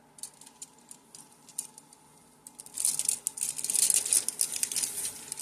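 Things being handled and rummaged through: scattered light clicks and taps, then denser, louder rustling from about two and a half seconds in.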